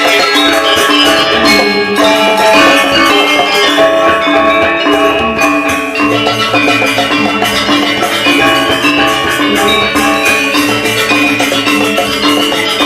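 Balinese gamelan ensemble playing a tabuh kreasi: bronze metallophones ring in fast, dense layered figures over drums. A low sustained tone joins about halfway through.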